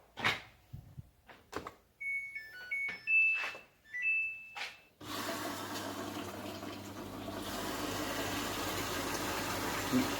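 Samsung washing machine control panel: a few clicks and several short beeps as buttons are pressed. About five seconds in, the water inlet valve opens and water runs into the machine with a steady hiss and low hum, a sign that the newly replaced inlet solenoid valve is working.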